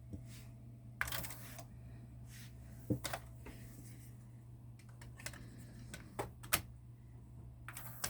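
Akai GX-9 cassette deck being operated: a series of sharp mechanical clicks and clunks spread irregularly over several seconds, over a steady low hum.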